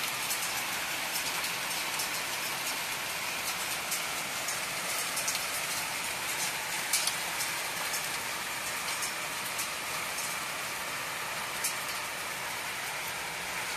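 Heavy rain falling in a steady hiss, with sharp ticks of drops striking close by on the balcony tiles and railing.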